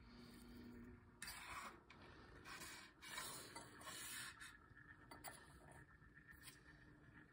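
Faint hand-handling noise over near silence: a few short rubbing and scraping bursts in the first half, then a couple of light clicks.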